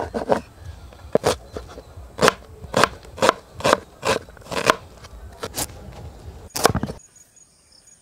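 Broad-bladed kitchen knife chopping a red onion on a wooden chopping board: about ten sharp chops at an uneven pace, stopping about seven seconds in.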